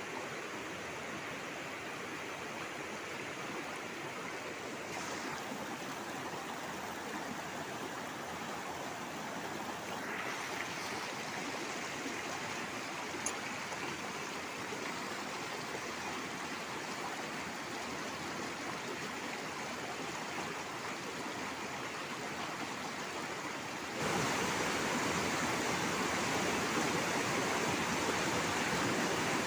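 Shallow rocky river rushing over stones and through rapids in a steady roar of white water. Near the end the rush suddenly steps up and stays louder.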